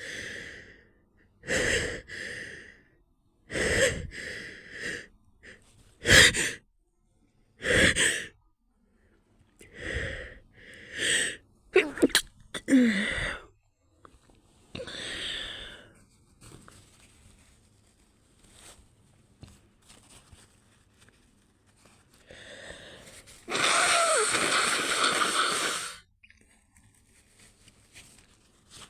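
A person sneezing over and over with the nose held shut: about ten short, stifled sneezes come every second or two through the first half. They are followed by fainter breathing and then a loud noisy stretch of about two seconds near the end.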